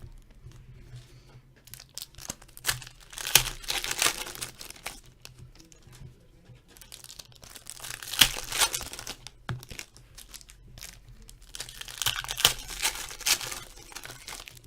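Foil trading-card packs being torn open and crinkled by hand, in several bursts of ripping and crackling wrapper with short pauses between.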